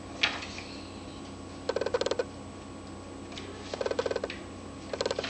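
Domestic cat purring in short rattling bursts, three times about two seconds apart, with a single click just after the start.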